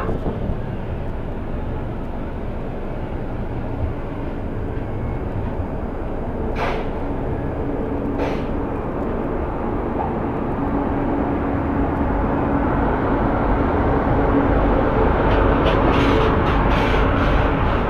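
Indian Railways express train pulling out of a station: the rumble of wheels and coaches grows steadily louder as it gathers speed. Two clicks come about a third of the way in, and a quick run of clacks comes near the end.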